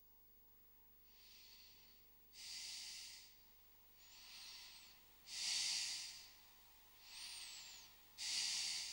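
A person breathing slowly and deeply: about three breath cycles, each a softer breath followed by a louder one, roughly one cycle every three seconds, starting about a second in.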